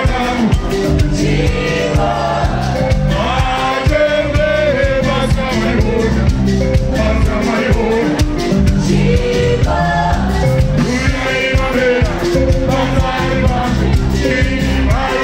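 Live band music with a lead singer and backing singers over electric guitar and drums, played loud through a stage sound system.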